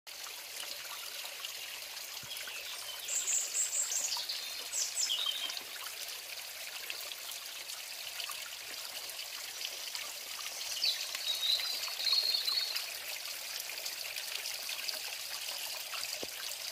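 Small spring of water trickling and splashing over wet stones in a steady rush. Birds chirp briefly a few seconds in and again past the middle.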